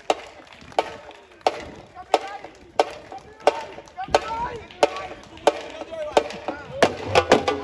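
Sharp wooden clacks keeping a steady marching beat, about three every two seconds, with voices calling out between them. Near the end a percussion band comes in with wood block and drums.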